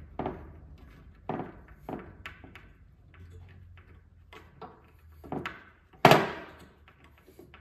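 Wood screws being driven by hand with a screwdriver through a metal drawer rail into a wooden drawer bottom: a run of short creaks, scrapes and knocks, the loudest and longest about six seconds in.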